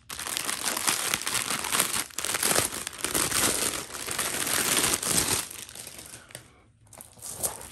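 Plastic drill bags and their outer plastic wrap crinkling loudly as the stack of diamond-painting drill packets is handled and pulled apart. The crinkling is dense for about five seconds, then thins out and nearly stops before a few last crackles near the end.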